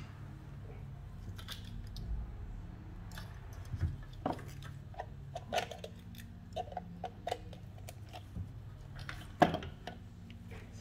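Handling noise from gloved hands working with an FRM circuit board and a programmer box on a silicone bench mat: scattered small clicks, taps and rustles over a steady low hum, with one sharper knock about nine and a half seconds in.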